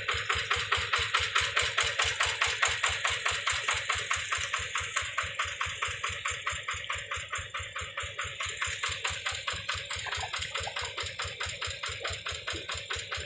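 Single-cylinder diesel engine of a hand tractor idling, a rapid, even knocking that keeps a steady beat.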